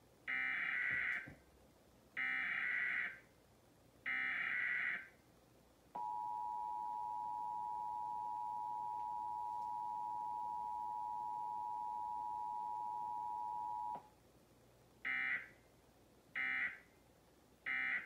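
Emergency Alert System Required Monthly Test played through a television's speaker. Three one-second screeching SAME data header bursts come first, then the two-tone EAS attention signal sounds steadily for about eight seconds, then three short end-of-message data bursts near the end. No voice message comes between them: this is only a test.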